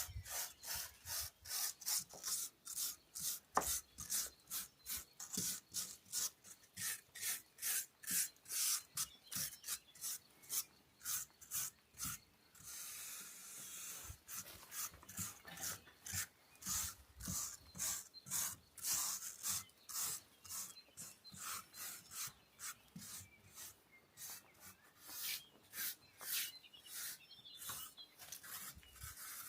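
Rhythmic hand strokes abrading stone, about two to three scraping strokes a second, like a rasp or sanding block worked back and forth. About halfway through there is one longer unbroken rub of a second or so.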